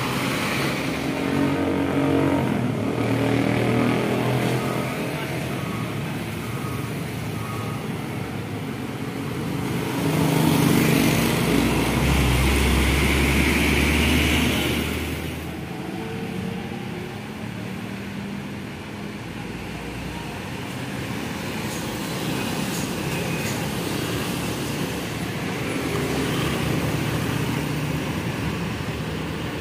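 Highway traffic: diesel trucks and motorcycles passing close by, engines running. The loudest pass is a heavy vehicle with a deep rumble, a little before halfway through.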